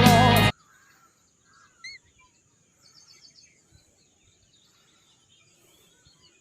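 A song with singing cuts off abruptly about half a second in, leaving faint outdoor ambience: scattered bird chirps and a quick trill over a steady high hiss.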